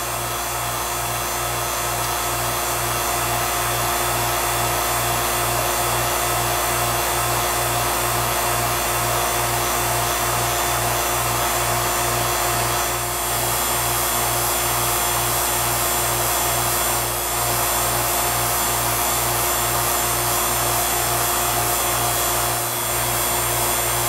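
Vacuum pump running steadily while pulling a deep vacuum, around 100 microns, on a refrigerant hose, with a low throb about twice a second.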